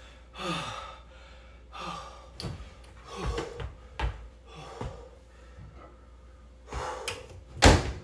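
Heavy breathing and gasps, with a few clicks as a wall-mounted microwave's door is pulled open, then the door shut with a loud thump near the end.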